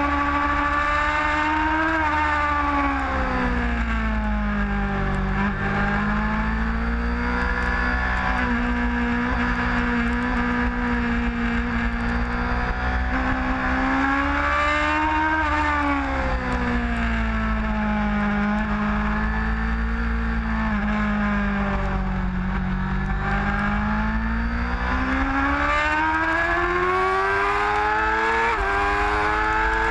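Sport bike engine heard from the bike itself on track. Its pitch falls as the rider rolls off for corners and rises again on the throttle, twice over, with a quick gear change near the end. A steady low rumble runs beneath it.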